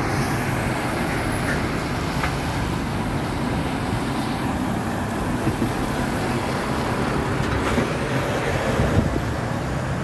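Iveco Stralis diesel articulated lorries driving slowly past close by through a roundabout: a steady engine and tyre rumble.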